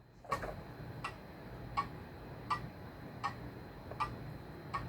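A clock ticking steadily, one even tick about every three-quarters of a second.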